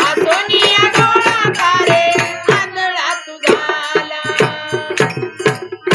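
Women singing a devotional bhajan, with a two-headed barrel drum and small hand cymbals keeping a steady beat. The singing breaks off briefly about three seconds in, then goes on.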